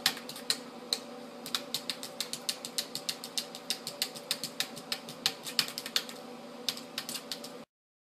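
A cat's paws tapping quickly on a hard plastic surface: a fast, uneven run of sharp clicks, several a second, that cuts off abruptly near the end.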